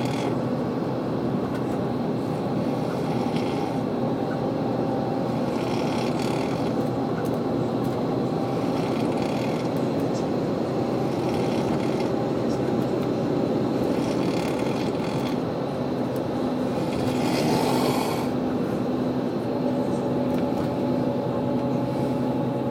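A person snoring, a rasping snore roughly every three seconds over a steady hum.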